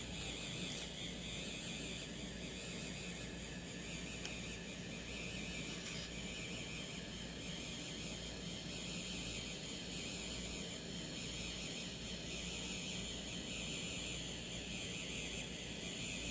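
3D printing pen's small filament-feed motor running steadily, a constant high-pitched whine with hiss and no breaks.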